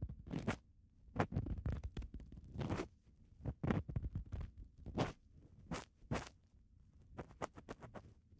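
Ear pick scratching and scraping deep inside an ear, in irregular short strokes of a second or less with brief pauses between them.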